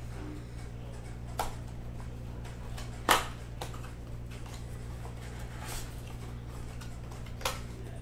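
Cardboard box being opened by hand: a few short scrapes and snaps of card as the flaps are pulled and the inner box slid out, the loudest about three seconds in, over a steady low hum.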